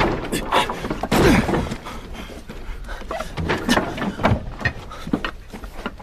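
A string of sharp knocks and thuds, irregularly spaced, with a voice heard briefly between them.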